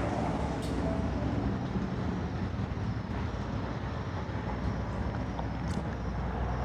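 Steady low background rumble, with two faint clicks about half a second in and near the end.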